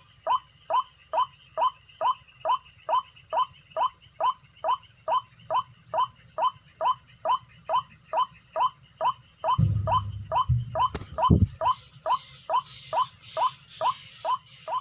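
White-breasted waterhen call, as used to lure the birds: a short falling note repeated very evenly about three and a half times a second, over a steady high buzz. About two-thirds of the way through, low rumbling thumps come in, with one sharper knock.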